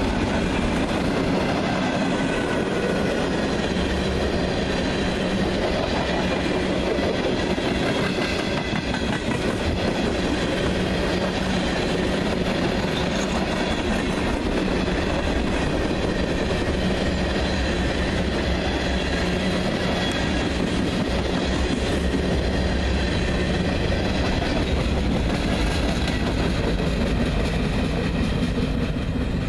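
Freight train cars (tank cars, flatcars and covered hoppers) rolling steadily past, with a continuous rumble and clickety-clack of steel wheels on the rail.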